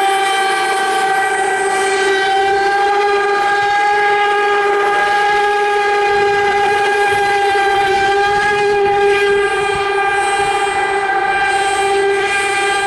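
Radio-controlled model boat motor running flat out, a loud, high whine that holds a steady pitch.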